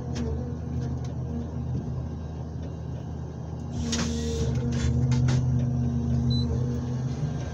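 Komatsu 901XC forest harvester running under hydraulic work, a steady engine and hydraulic hum heard from inside the cab. About four seconds in, a short rasping burst as the harvester head's saw cuts through a birch log, after which the engine note swells louder for a couple of seconds before settling.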